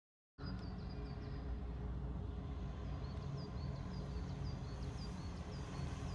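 A small bird chirping in short, high, repeated notes, more regularly in the second half, over a steady low outdoor rumble. The sound comes in suddenly about half a second in after a moment of silence.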